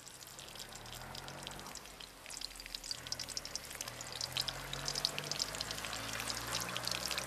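Green chillies sizzling and crackling in hot oil in a kadai, just added to the pan. The spitting grows denser about two seconds in.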